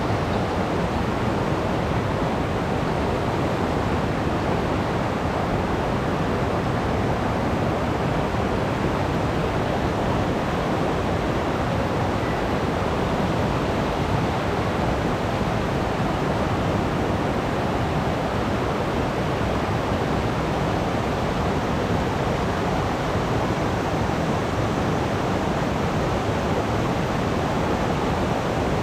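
Mountain stream rushing over rocks, a loud, steady, even wash of water.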